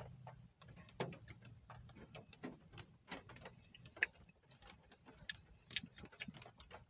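Faint, irregular soft clicks and ticks from eating and from handling a foam takeout box and sauce cup, a few sharper ones standing out, over a faint low hum.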